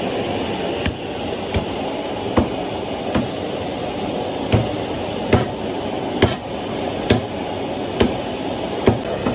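Cleaver chopping on a chopping block at an even pace, about one stroke a second, over a steady rushing background noise.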